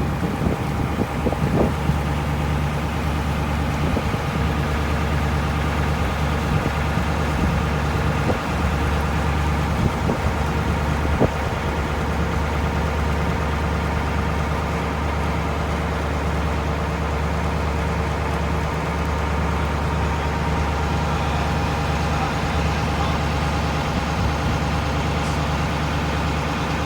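An engine running steadily, with a few sharp knocks in the first dozen seconds.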